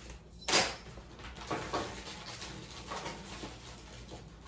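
A single sharp knock or clatter about half a second in, followed by a few fainter handling knocks and shuffles as equipment is moved about.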